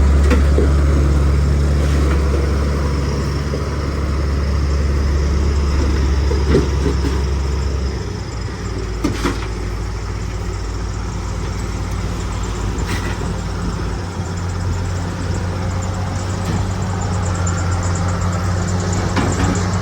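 Bulldozer's diesel engine running steadily under load, its low note dropping and changing about eight seconds in, with a few scattered clanks.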